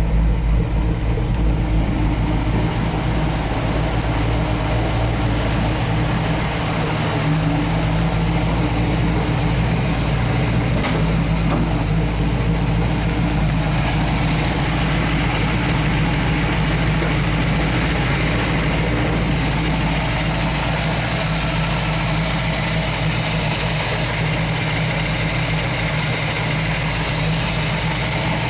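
1968 Pontiac Firebird's freshly built V8, a 428 stroked to 462 cubic inches with a 455 HO top end, idling steadily.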